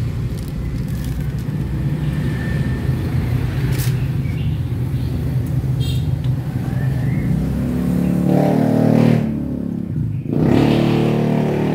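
A motor vehicle engine running, with a rise in pitch about eight seconds in. It cuts out briefly about ten seconds in, then runs again.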